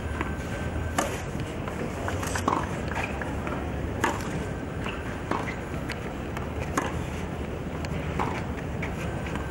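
Tennis rally on a clay court: a ball is struck back and forth by racket, with about eight sharp hits roughly a second or so apart, over steady background noise.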